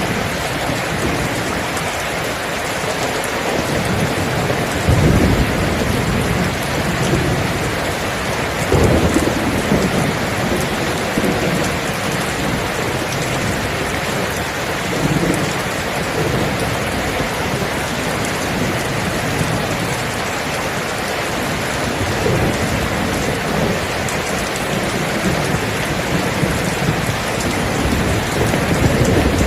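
Steady, heavy rain falling, with low rumbles of thunder rolling in several times, the strongest about five and nine seconds in.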